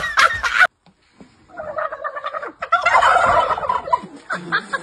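A moment of laughter cuts off, and after a short silence domestic turkeys gobble in repeated rolling bouts, loudest about three seconds in.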